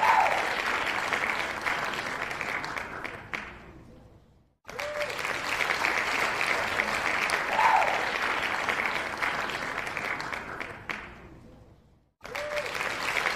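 Recorded crowd applause with cheering, played as a loop: it dies away to a brief silence and starts over abruptly, twice.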